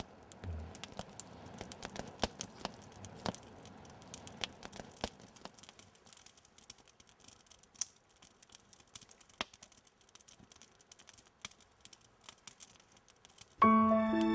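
Wood campfire crackling, a scatter of sharp, irregular snaps. Gentle music with sustained tones comes in near the end.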